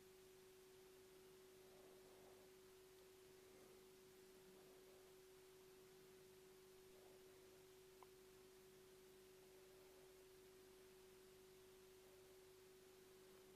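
Near silence: room tone with a faint, steady single-pitched hum.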